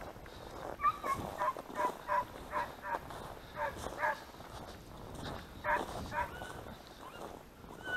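Hunting hounds baying in a run of short, pitched yelps, about a dozen over some five seconds, then stopping.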